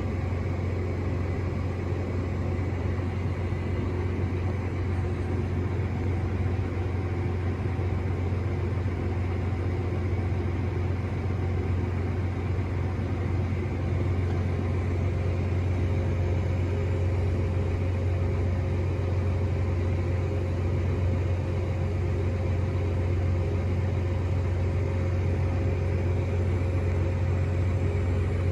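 Tractor engine running steadily as it pulls a grain cart across the field, heard from inside the cab: a constant low drone with a faint steady whine above it.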